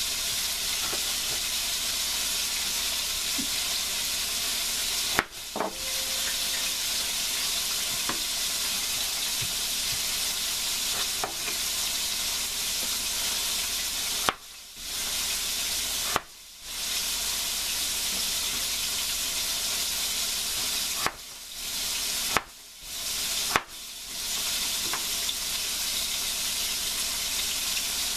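Tofu frying in hot oil in a pan: a steady sizzle that drops out briefly several times. A few light taps of a chef's knife on a plastic cutting board sound through it.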